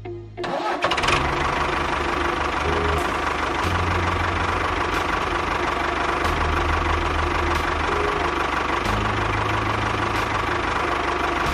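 Small engine running steadily with a constant high whine, starting about half a second in and cutting off at the end, over background music.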